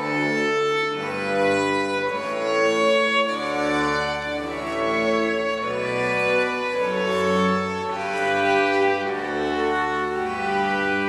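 Chamber string orchestra playing live: violins carry the melody in held, bowed notes over a lower string part, the notes changing every half second to a second.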